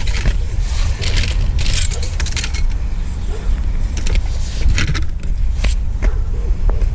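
Steady low rumble of a moving vehicle with irregular metallic jingling and clinking, like loose keys or metal rattling.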